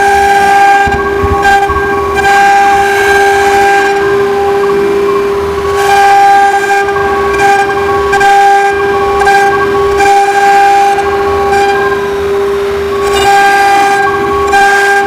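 A CNC router's spindle whines at a steady pitch while its bit carves letters into a wood board, with cutting noise and higher overtones that come and go every second or two as the bit moves through the cut.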